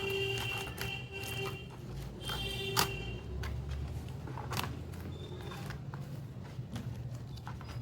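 Scattered clicks and light rustling of packaging being cut open and unwrapped by hand, with a faint steady high tone that comes and goes in the first three seconds.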